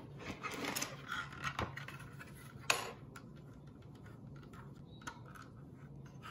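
Faint clicks and taps of plastic Lego bricks as the model is handled and tipped up on its baseplate, with one sharper click about two and a half seconds in.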